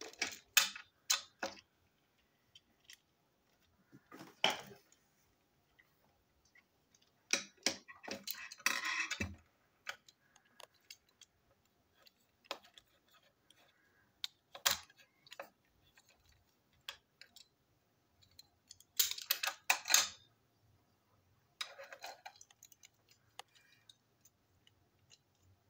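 Small plastic and metal parts of a toy steam engine being handled with a screwdriver on a hard tabletop: scattered clicks, taps and short clatters, coming in bursts a few seconds apart.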